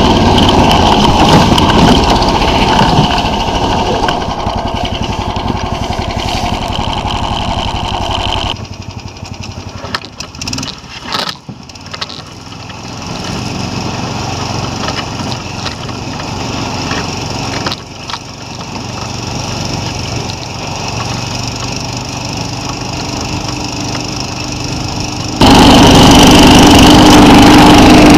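SnowDog motorized toboggan's engine running as the machine travels over snow. About eight seconds in it drops to a quieter steady hum with a few knocks and clatters, and the loud engine sound returns suddenly near the end.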